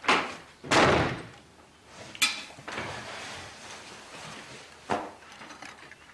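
Dining-table clatter: a sharp knock, then a heavier scrape about a second in as a chair is pushed back, a ringing clink of china or glass just after two seconds, and another knock of crockery being handled near the end.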